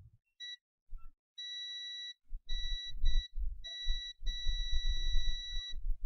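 A multimeter's continuity beeper sounds in a string of steady, high beeps of uneven length, the longest about a second and a half near the end. Each beep marks the freshly soldered replacement Samsung Galaxy S4 power switch closing the circuit as it is pressed. A low rumble runs under the beeps.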